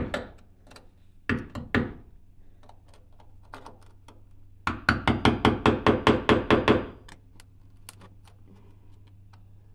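Claw hammer striking the handle of a screwdriver set against a rusted elevator bolt fused into a fiberglass camper floor, to break the bolt free. A few strikes come about a second in, then a quick run of about a dozen even, rapid taps from about five to seven seconds.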